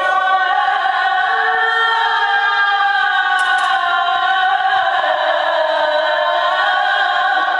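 A muezzin's voice calling the evening adhan, the Islamic call to prayer, over the mosque's loudspeakers. He holds one long, ornamented note that steps down in pitch about five seconds in.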